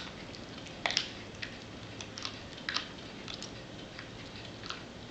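Yorkshire terrier chewing a raw chicken leg, the bone crunching in irregular sharp cracks, loudest about a second in and again near three seconds.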